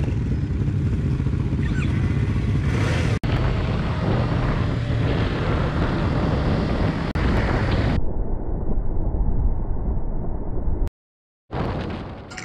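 Sport motorcycle engine running with wind noise while riding, in several edited clips. The sound breaks off into a brief silence near the end before picking up again.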